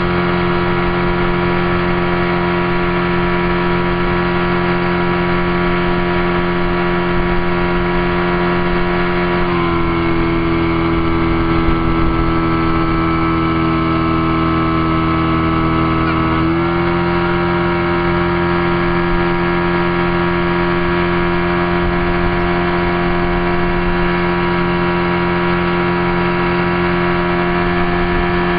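Motorboat engine running steadily at speed. Its pitch shifts for about seven seconds near the middle, then settles back.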